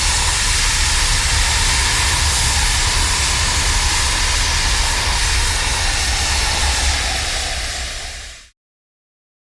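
Loud, steady rushing hiss over a deep rumble, the sound of a massive gas release from a tank, which fades slightly and then cuts off abruptly near the end.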